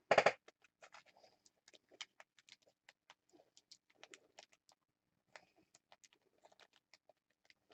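Faint, scattered clicks and light rustling of trading cards and packaging being handled, with one short, louder rustle right at the start.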